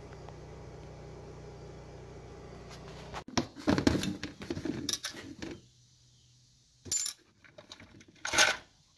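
Metal tools and parts clinking and rattling, with a sharp ringing clink about seven seconds in. Before that, a steady low hum that cuts off about three seconds in.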